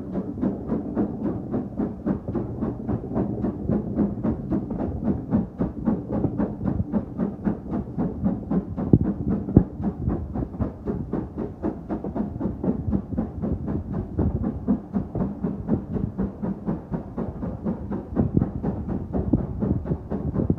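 Steam train running at a steady pace, with an even rhythm of about three to four beats a second.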